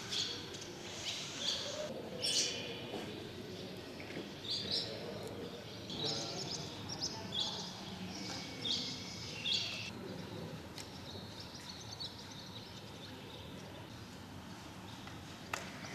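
Small birds chirping: short, high calls repeated in quick clusters, busiest through the first ten seconds and fainter after, over a low steady outdoor background. A single sharp click near the end.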